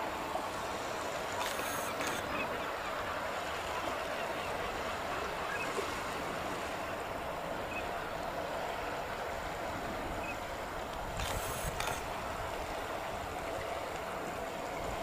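Distant jet engine noise from a Boeing 737-800 rolling out on the runway after landing: a steady rush with a faint steady hum.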